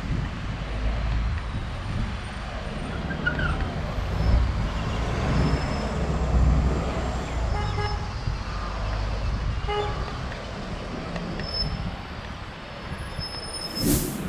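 Street traffic at an intersection: a low rumble of car engines and tyres that swells as vehicles pass. Short car-horn toots come about eight seconds in and again two seconds later. A brief noise burst comes near the end.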